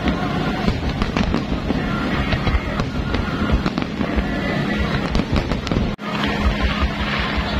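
Aerial firework shells bursting in a dense barrage, many bangs in quick succession, with a brief break about six seconds in.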